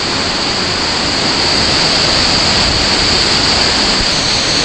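Waterfall at close range: a loud, steady rush of falling water that grows a little louder over the first two seconds.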